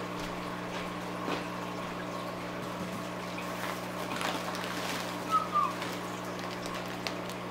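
Faint steady hum with a faint trickle of water. A little over five seconds in, a short rustle with a brief falling squeak as a water-filled plastic fish bag is handled in a cardboard shipping box.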